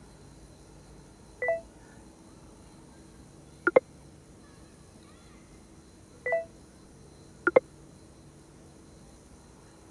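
Phone messaging sounds: a short electronic beep followed about two seconds later by a quick double click as a new message arrives, the pair heard twice.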